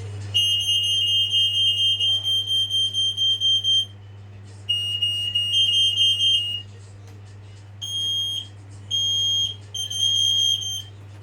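Smoke alarm sounding on test: a loud, shrill, piercing tone pulsing rapidly for a few seconds, stopping, sounding again for about two seconds, then three shorter beeps near the end.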